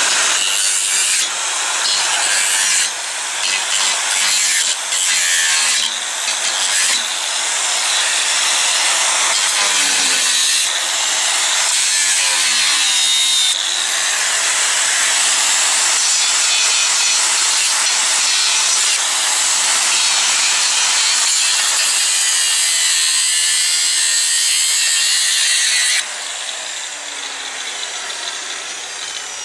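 Angle grinder with a cutting disc slicing through 6 mm steel plate: a loud, steady, hissing grind, with brief dips in the first few seconds. It goes quieter a few seconds before the end.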